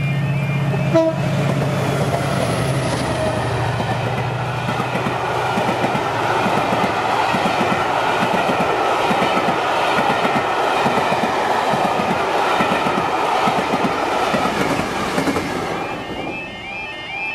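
Passenger train hauled by a Class 88 locomotive passing close by at speed. The locomotive goes past near the start, then the coaches roll by with a rapid clatter of wheels over the rail joints, fading away near the end.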